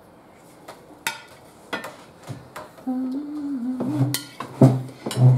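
Cutlery and serving utensils clicking and scraping against dishes as taco fillings are served, a series of sharp clicks. About three seconds in, a person starts humming a wavering tune, with a few heavier knocks of dishes on the table.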